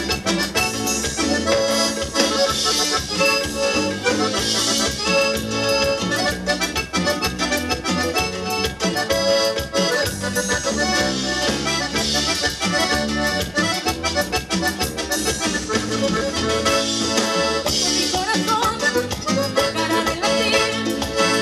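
Live Latin dance band music led by an accordion over a steady beat.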